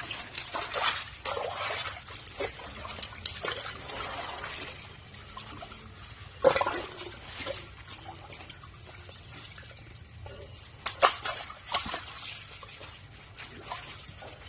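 Water splashing and sloshing in a plastic tub as a baby Asian elephant plays in it with its trunk and feet. The splashes come irregularly, and the loudest are about six and a half seconds in and about eleven seconds in.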